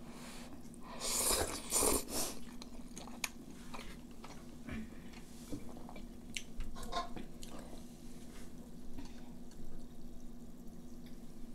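Ramen noodles slurped in several loud, noisy pulls about a second in, followed by chewing and scattered light clicks of chopsticks against dishes, over a faint steady hum.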